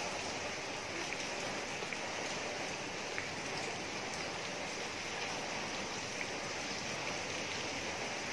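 Heavy rain falling on standing water in a paved lane and on leafy plants: a steady, even hiss with faint scattered drop ticks.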